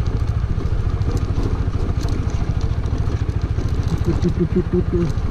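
TVS Apache single-cylinder motorcycle engine running steadily in rapid low pulses while the bike is ridden over a loose dirt and gravel track.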